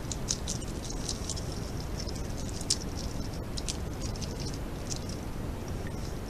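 European otter moving on dry grass and twigs, making short, irregular crackles and rustles. A steady hiss from the camera trap's microphone runs underneath.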